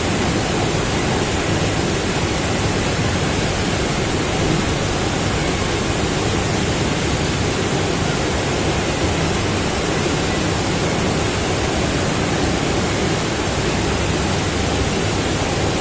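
Surf simulator running: a thick sheet of pumped water rushing steadily up the padded wave slope, a continuous even roar like a waterfall.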